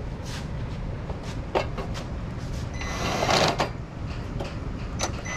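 Small dash parts being handled and fitted onto a plastic dash bezel: scattered clicks and taps of plastic pieces, with a short noisy whirring burst about three seconds in.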